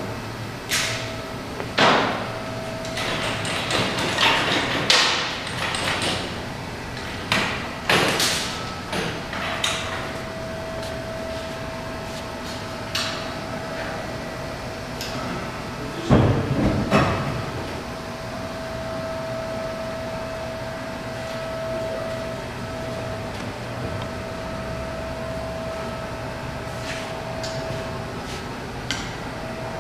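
Workshop noise: irregular knocks and clanks through the first ten seconds and a single heavy thump about 16 seconds in. A faint steady hum with a thin whine runs underneath.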